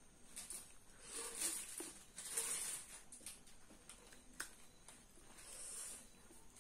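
Close-miked eating by hand: fingers squishing and mixing rice on a plate, and chewing, in soft wet bursts with a few small clicks.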